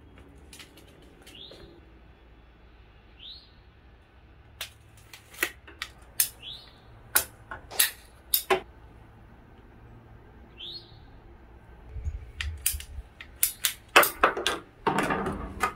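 Ratcheting PVC pipe cutter clicking as it is squeezed through half-inch PVC pipe: single sharp clicks spaced about half a second to a second apart, then a denser run of louder clicks with a scraping rustle near the end. A bird gives a few short rising chirps in the background.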